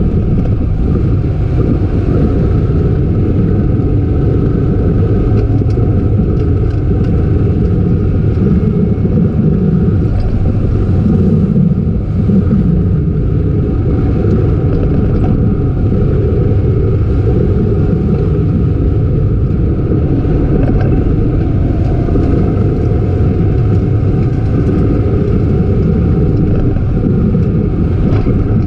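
Mazda Miata's four-cylinder engine running hard on track, heard loud and steady from on board with road and wind noise, its low note swelling and easing every few seconds.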